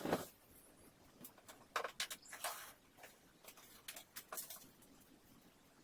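Light handling noises in a small room: scattered clicks and short rustling scrapes, a few a second, irregular, with the loudest ones about two seconds in.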